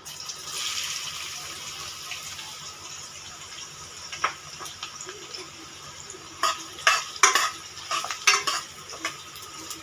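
Sliced onions dropped into hot oil in a pan, sizzling, the hiss loudest at first and then easing off. From about six seconds in, a spoon clinks and scrapes against the pan as the onions are stirred.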